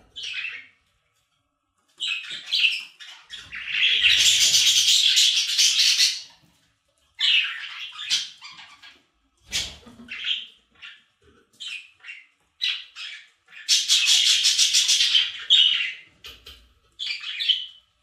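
Budgies chattering and warbling in short bouts with brief pauses. Two longer, louder stretches of rapid chatter come at about four seconds and fourteen seconds in.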